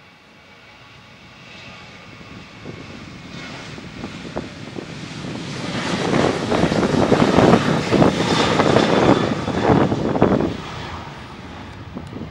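Boeing 737-800's twin CFM56-7B jet engines at takeoff thrust as the airliner accelerates down the runway past, building to a loud rumble with crackle. The sound drops off sharply about ten and a half seconds in.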